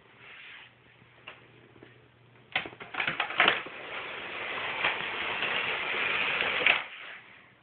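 Brown paper crinkling and rustling as a cat moves about underneath it: a few sharp crackles about two and a half seconds in, then a loud continuous rustle for about four seconds that stops abruptly near the end.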